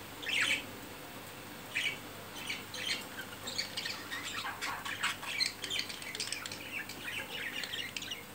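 Budgerigars calling during mating and courtship: a sharp squawk, another call about two seconds in, then a run of quick chirping chatter.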